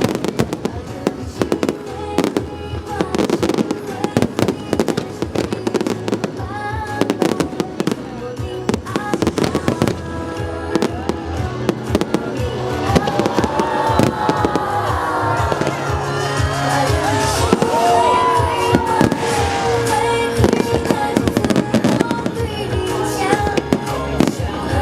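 Fireworks bursting in rapid succession, dozens of sharp bangs and crackles, over music from loudspeakers. The barrage grows louder and denser about halfway through.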